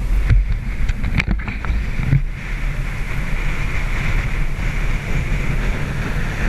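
Wind buffeting the microphone on a sailing catamaran under way, a heavy, uneven rumble over a steady hiss of water rushing past the hulls. A few sharp clicks in the first couple of seconds.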